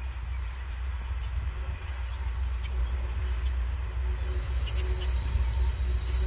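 Approaching Norfolk Southern freight train led by diesel locomotive 9544: a low rumble growing steadily louder as the train nears.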